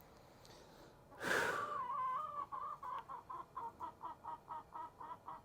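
A chicken clucking: one loud call about a second in that slides down in pitch, then a quick run of short repeated clucks, about four or five a second.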